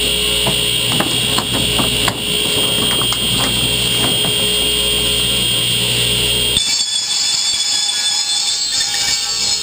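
Steady high whine of a running shop machine, with light clicks and clatter of plastic pipes being handled in the first few seconds. About two-thirds through, the sound changes abruptly: the low rumble drops out and a different high whine takes over.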